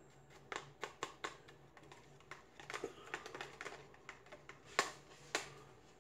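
A utensil clicking and scraping against a plastic food container while stirring a butter and seasoning sauce to work out the lumps. Irregular light clicks, two or three a second, with two louder knocks near the end.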